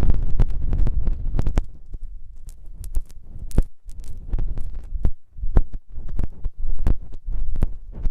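Close-miked rubbing and scratching on an ASMR microphone's ear: irregular crackles and sharp clicks over a low, throbbing rumble. The rumble drops away for a few seconds in the middle.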